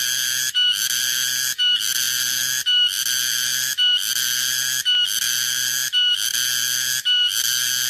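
Cicada (tonggeret, garengpung) calling: a loud, shrill, steady buzz that breaks off briefly about once a second and restarts at once with a short higher note, over and over.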